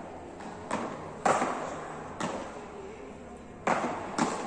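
Beach tennis paddles hitting the ball back and forth in a rally: five sharp pops at uneven intervals, the loudest a little over a second in, each echoing briefly in a large indoor hall.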